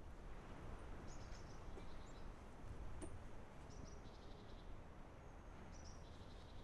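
Faint outdoor ambience: a low steady rumble, with small birds chirping briefly now and then.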